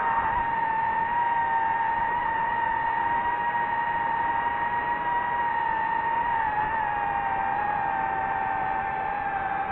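FPV quadcopter's brushless motors and propellers whining steadily at cruising throttle, over a hiss of prop wash. The pitch sags a little near the end.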